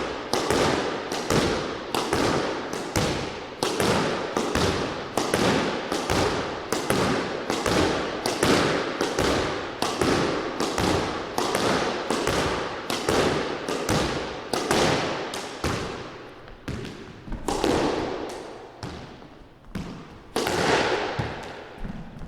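Squash ball being hit over and over with a racket and rebounding off the court walls: sharp hits at a fast, even rhythm of about two a second, each echoing in the court. After about 15 s the hits come fewer and further apart.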